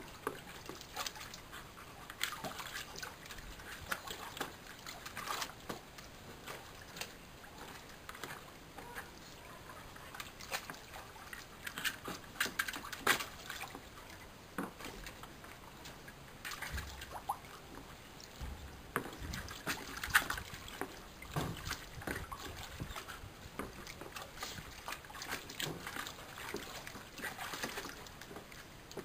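Water sloshing and splashing irregularly in a plastic paddling pool as a dog wades about in it, pushing a boomerball through the water.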